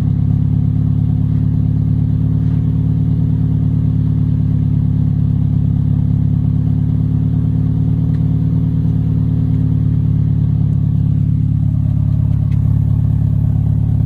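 Subaru WRX STI flat-four boxer engine idling steadily through a twin shotgun muffler after a cold start.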